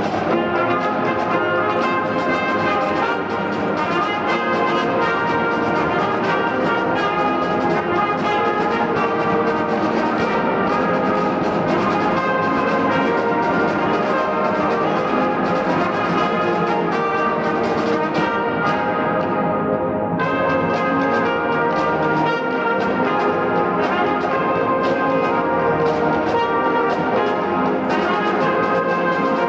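Brass and reed band playing: trumpets, trombones, saxophones and a sousaphone in continuous ensemble music.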